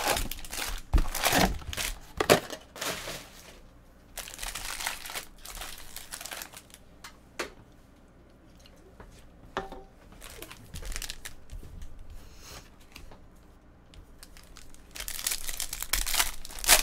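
Foil wrappers of Bowman Draft jumbo trading-card packs crinkling as the packs are handled, loudest in the first three seconds, then a foil pack crinkling and tearing as it is pulled open near the end.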